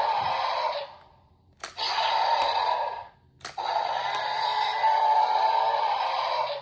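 Mattel Jurassic World Wild Roar Ceratosaurus toy playing its electronic roar through a small, tinny speaker, set off again and again by a button press. A roar ends about a second in; then a click and a short roar, and another click and a longer roar.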